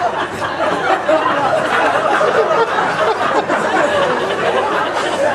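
Dinner audience laughing at a joke, many voices chuckling together with some chatter.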